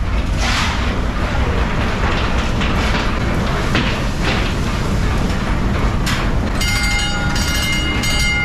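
Running machinery of the steamship TSS Earnslaw, its coal-fired triple-expansion steam engines: a loud, dense rumble with occasional knocks. Near the end a few sustained musical tones come in over it.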